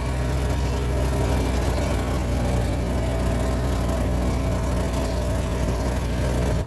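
Vehicle engine running at a steady, low hum while driving over a grass paddock, with a constant rumble of the ride underneath.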